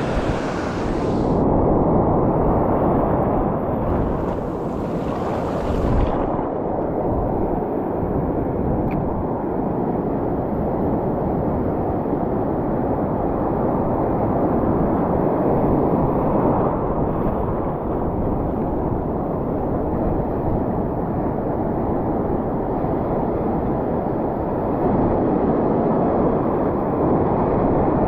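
Steady rush of surf breaking and washing over a shallow reef, mixed with wind buffeting the microphone.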